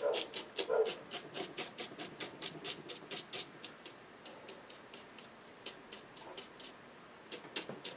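A stiff brush dabbing and scratching paint onto watercolour paper to texture grass: quick dry taps, about three or four a second, thinning out after about four seconds.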